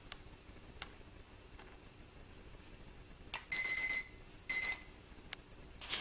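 Small electronic beeper giving two high-pitched beeps, a half-second one about three and a half seconds in and a shorter one a second later. A few faint clicks around them.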